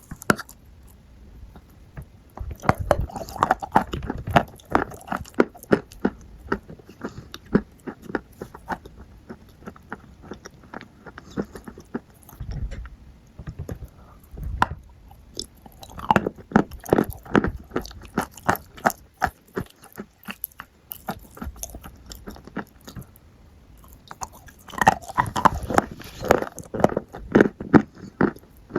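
Close-up crunchy chewing and biting of food, in bouts of rapid crunches separated by short pauses.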